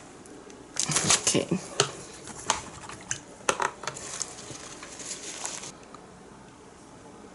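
Light clinks and clatters of small hard objects being handled: a quick cluster about a second in, then scattered clicks that stop near the end.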